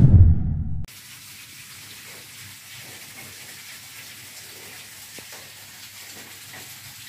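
A loud intro sound effect fades out within the first second. It is followed by a faint, steady hiss with a low hum underneath.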